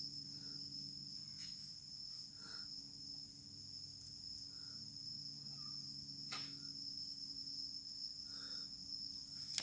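Night insects trilling continuously in one high-pitched tone, with a faint low steady hum underneath.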